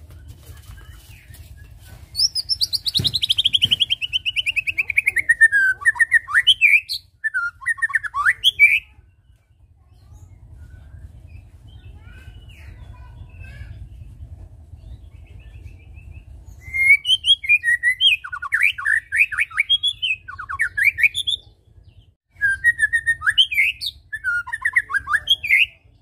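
White-rumped shama singing: a long falling trill about two seconds in, then a few sharp whistled notes. After a pause of several seconds, two runs of quick varied notes come near the end.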